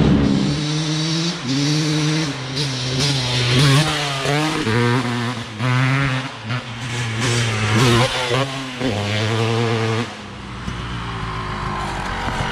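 250cc motocross dirt bike engine accelerating hard, its pitch climbing and dropping in steps as the rider works the throttle and shifts gears. About ten seconds in it drops to a quieter, steadier running.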